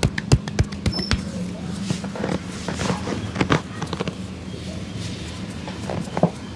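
Percussive head-massage hand slaps: a fast run of sharp slaps, about four a second, that stops about a second in, followed by scattered softer pats and rubbing over a steady low hum.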